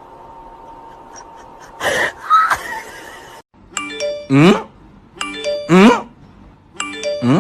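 A brief noisy sound about two seconds in, then a loud electronic music loop: a short phrase of stepped tones ending in a falling pitch swoop, repeated about every second and a half.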